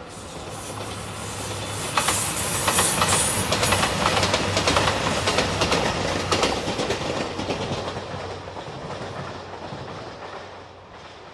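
JR Shikoku 2700-series Anpanman diesel limited express train passing close by: a low rumble and engine hum with wheels clacking rapidly over the rail joints. It builds over the first two seconds, is loudest for several seconds, then fades as the train moves away.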